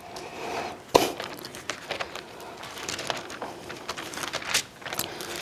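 Thin Bible pages being leafed through and rustled, with a sharp tap about a second in.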